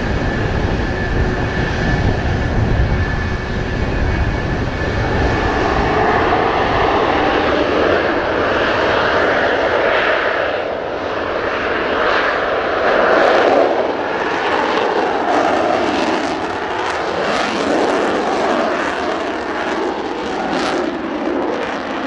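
Jet engines of JASDF F-4EJ Kai Phantom IIs running as the jets taxi: the twin J79 turbojets give a continuous loud roar. There is heavy low rumble in the first few seconds, and the sound wavers and flutters later on. Strong wind is also hitting the microphone.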